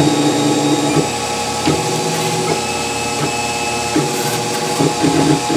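Wanhao Duplicator 4 3D printer printing: its stepper motors whine in tones that jump to a new pitch every half second to a second as the print head changes moves, with small clicks at the changes, over a steady hum.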